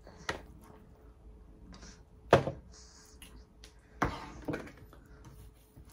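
Kitchen knife and raw chicken knocking on a plastic cutting board while the meat is scored: four thuds, the loudest a bit over two seconds in, with faint handling sounds between.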